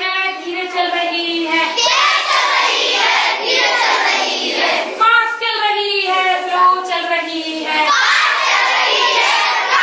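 A group of children singing together in Hindi, an action song, with long held notes.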